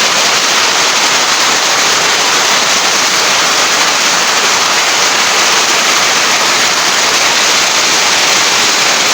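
A hailstorm with heavy rain falling hard, a dense, steady hiss of countless impacts with no single hit standing out.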